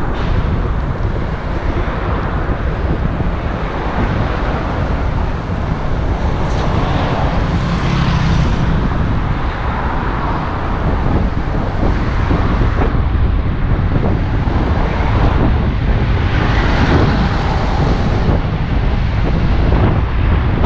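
Loud, steady wind rumble on the microphone mixed with road traffic noise.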